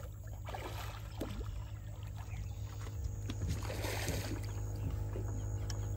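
A hooked redfish splashing and thrashing at the surface of shallow water, in two surges about half a second and four seconds in, over a steady low hum and background music.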